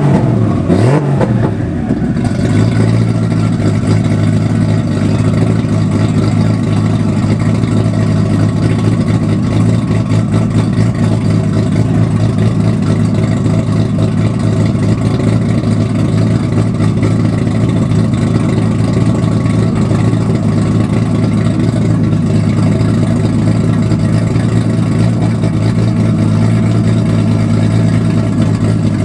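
Nissan Skyline R32 GT-R's RB26DETT twin-turbo straight-six engine, with a short rev in the first second, then idling steadily.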